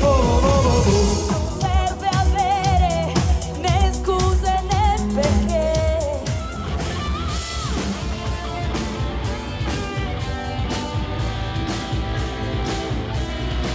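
Live band playing pop music: a singer holding wavering notes over drums and bass for about the first six seconds, then the band carrying on with electric guitar and a steady drum beat.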